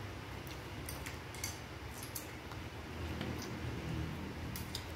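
Spoons tapping and scraping against ceramic bowls during a meal: scattered soft clicks at uneven intervals over a low room hum.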